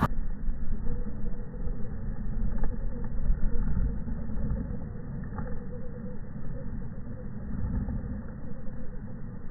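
Wind buffeting the microphone in a heavy, uneven low rumble, sounding muffled, with the faint steady whine of the RC truck's small brushed electric motor underneath.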